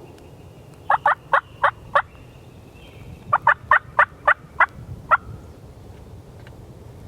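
Two series of turkey hen yelps: about five evenly spaced, sharp notes, a pause of a second or so, then about seven more.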